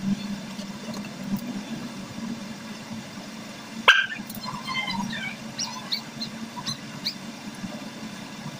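Small dogs whining and yipping for a treat: one sharp yip about four seconds in, then short high whimpers over the following few seconds.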